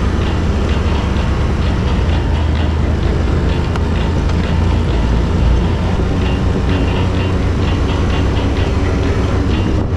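Quad bike (ATV) engine running steadily at riding speed, heard from a camera mounted on the quad, with a heavy low rumble of wind and rough dirt track under the wheels.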